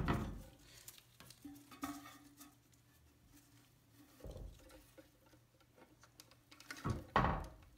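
Small clicks, taps and scratching of plastic parts handled by gloved fingers: a rubber refill tube being worked onto the nipple of a plastic toilet fill valve inside the tank. A louder knock about a second in, and a louder rub or knock near the end.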